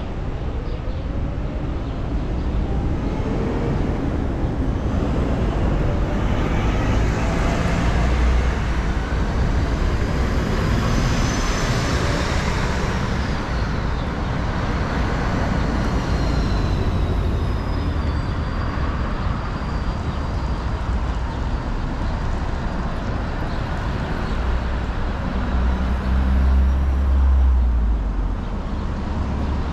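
City street traffic: vehicles passing steadily, with one louder pass rising and fading around the middle and a low engine rumble near the end.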